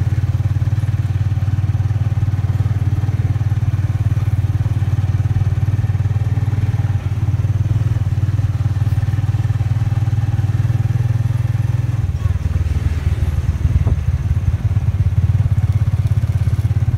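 Small motorcycle engine running under way, heard from inside the passenger cab as a steady low drone that shifts about twelve seconds in.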